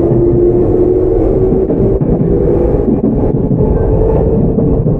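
Tokyu 9000 series electric train heard from on board, with its early Hitachi GTO-VVVF traction motors. The motor whine fades out about a second in, and the train then runs on with a steady rumble of wheels on the rails.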